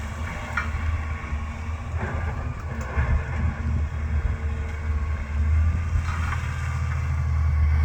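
Excavator's diesel engine running under load, rising and easing as it climbs, with a few faint squeaks and clinks on top.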